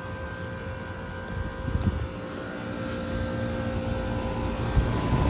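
Outdoor air-conditioner condensing unit, a 2007 Trane XR13, running: a steady compressor and fan hum with several high whining tones. Near the end part of the whine stops and wind rumbles on the microphone.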